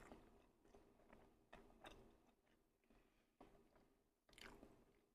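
Faint close-up chewing and wet mouth sounds of someone eating a chili cheese dog, a series of soft clicks and smacks at irregular intervals.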